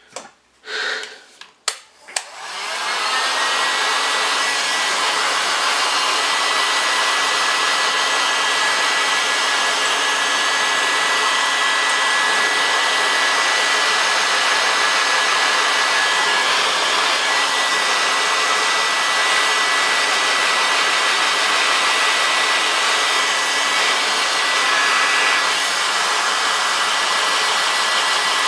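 Hot-air blower running steadily, switched on about two seconds in after a few handling clicks: a rushing air sound with a thin steady whine over it.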